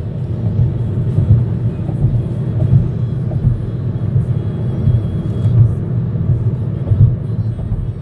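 Road noise heard inside a moving car's cabin: a steady low rumble of tyres and engine at highway speed.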